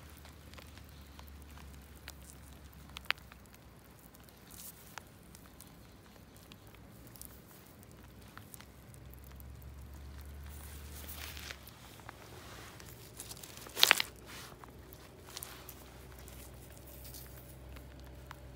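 Quiet crunching and clicking of wet river stones on a gravel bar, underfoot and in the hand, with a few scattered clicks and a short, sharper knock about 14 seconds in.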